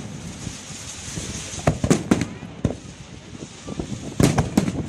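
Fireworks display: sharp bangs of shells going off, a few about two seconds in and a quick cluster of four or five near the end, over a steady hiss.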